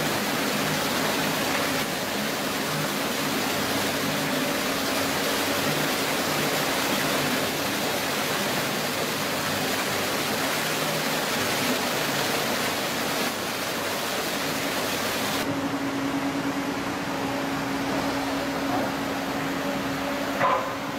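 Menzi Muck walking excavator's diesel engine running at a steady hum under a loud rush of water. About fifteen seconds in the sound changes abruptly: the hiss thins and the engine hum stands out more.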